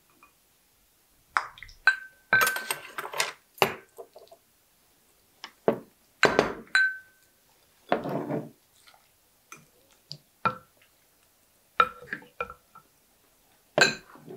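Utensils clinking and knocking against dishes: a dozen or so irregular, sharp clinks, a few ringing briefly with a clear tone, and a short scrape about eight seconds in.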